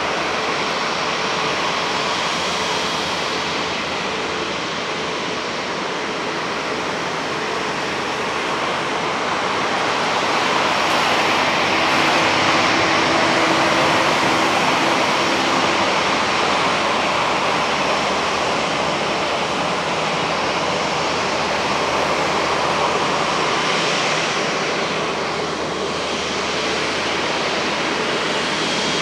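Jet airliner engines, a steady rushing roar that swells slightly about twelve seconds in with a faint whine, then eases back.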